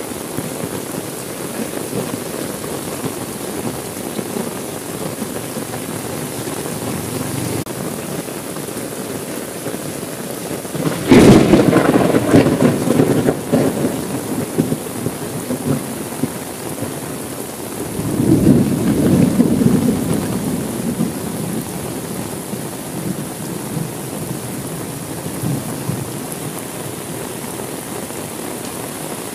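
Steady heavy rain with thunder. A sudden loud thunderclap comes about eleven seconds in and rumbles for a few seconds. A second, lower roll of thunder follows about seven seconds later.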